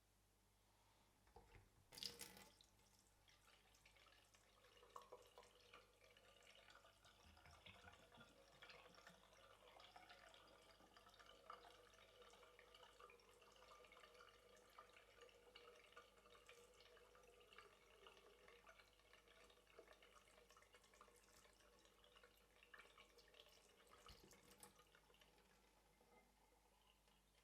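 A sink faucet turned on with a click about two seconds in, then water running faintly into the basin with small splashes and drips. It is shut off with another click near the end.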